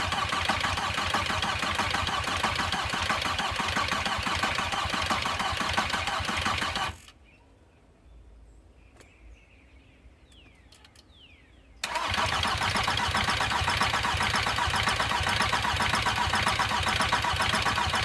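Rebuilt VW Passat B4 diesel engine being cranked over on the starter without firing, in an even rhythmic churn, while air is bled from the loosened injector lines on a weak battery. The cranking stops about 7 seconds in and starts again about 5 seconds later.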